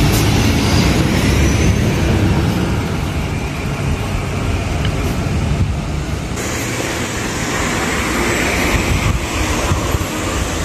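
A city bus's engine rumbling as it pulls away from a stop, mixed with street traffic noise. The sound shifts abruptly about six seconds in, becoming lighter in the low rumble and hissier.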